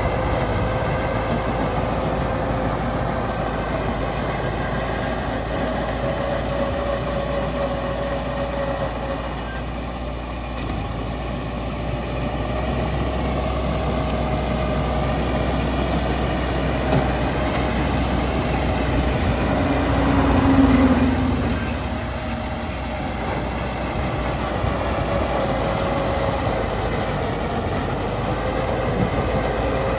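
Diesel engine of heavy earthmoving equipment running steadily, swelling briefly in loudness about two-thirds of the way through.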